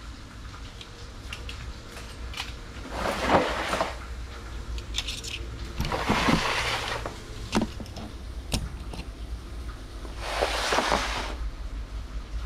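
Items being handled and set down on a table: three short bouts of rustling and clattering, with a few sharp clicks between them.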